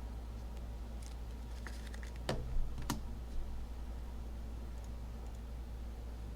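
A few light clicks and taps, the sharpest two about half a second apart, over a steady low hum.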